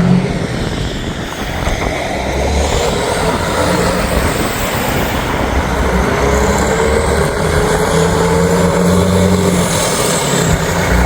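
A very large motorhome driving up the road, its engine and tyre noise building over the first few seconds and holding steady, with strong wind buffeting the microphone.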